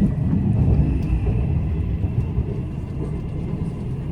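Steady low rumble inside a moving passenger coach of a Taiwan Railways Tze-Chiang express, hauled by an E500 locomotive, with wheels running on the rails.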